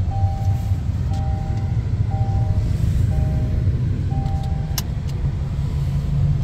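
Kia K3's seatbelt reminder chime, a two-tone beep repeating about once a second over the steady road and engine rumble inside the moving car. It stops after a click a little under five seconds in, as the seatbelt is buckled.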